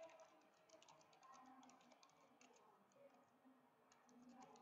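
Faint typing on a computer keyboard: a quick, irregular run of key clicks.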